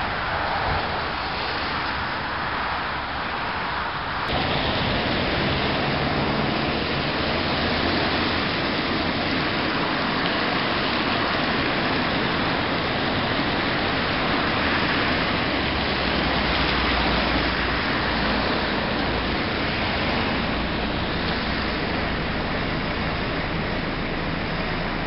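Diesel railbus running slowly, its engine a steady low drone under a heavy, even hiss. The sound changes abruptly about four seconds in.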